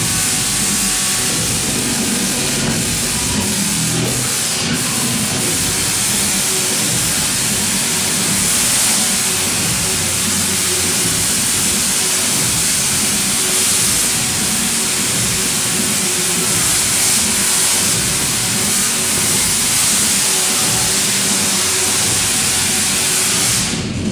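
Large Tesla coil firing continuously, its arcs striking a performer's raised hand: a loud, steady crackling discharge that cuts off suddenly near the end.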